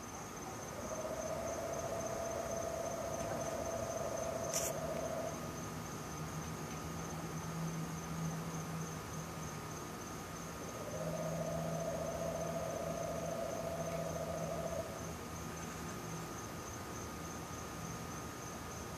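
Night chorus of calling animals: a steady high-pitched insect trill runs throughout. Over it, a lower droning trill sounds twice, each time for about four or five seconds, once near the start and again just past halfway, with a deep hum underneath through the middle. The recorder thinks the lower calls may be frogs.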